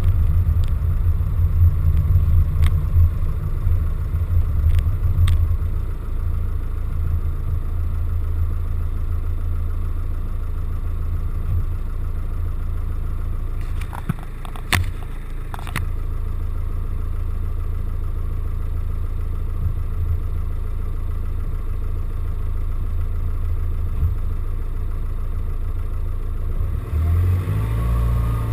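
Van engine running at low speed, a steady low rumble, with occasional sharp knocks and a short cluster of them about halfway through.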